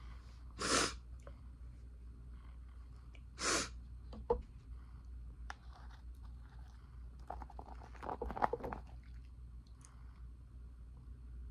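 Powdery ice being bitten and chewed: two loud crunching bites, about one second and three and a half seconds in, then a sharp click and a cluster of crackling chews around eight seconds.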